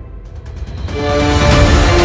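Cinematic background music. It is at a low point at the start, then swells back with long held notes about a second in.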